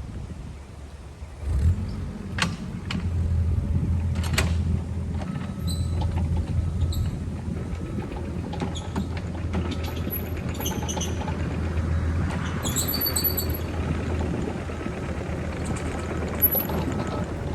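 A machine's engine starts up about a second and a half in and runs steadily, with a few sharp knocks and clanks and brief high squeaks over it.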